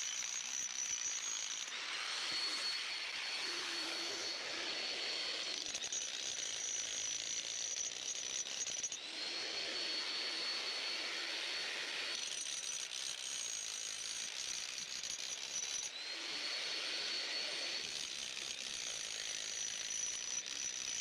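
Electric jackhammer driving steel foundation pins into the ground, played at 2.5 times speed. It runs in three stretches of a few seconds, each starting with a rising whine and then holding steady.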